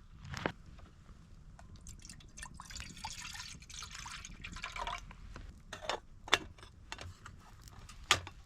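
Hot water poured from a kettle into a cup for about two and a half seconds, with the pitch of the filling cup rising near the end. A few sharp clicks and knocks of metal camp gear follow, the loudest about six seconds in.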